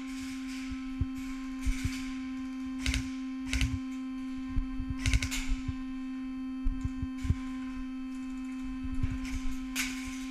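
A steady electrical hum, one low tone with overtones, holding level throughout, with scattered clicks and knocks over it.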